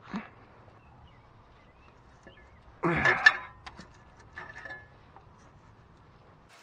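Band-type oil filter wrench twisting a Fram oil filter loose: a short rasping scrape about three seconds in that ends in a sharp crack as the filter breaks free, with smaller clicks and a faint scrape around it.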